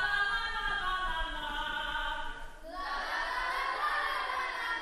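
Chorus of female voices singing together, holding two long notes, the second starting about two and a half seconds in.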